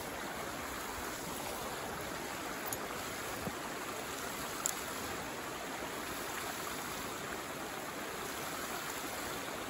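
Steady rush of flowing water, with a couple of faint ticks.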